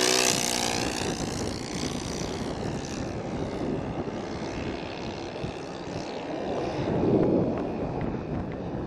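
Radio-controlled model airplane's motor and propeller passing low overhead, its pitch dropping as it goes by at the start. It then fades as the plane climbs away and grows louder again about seven seconds in.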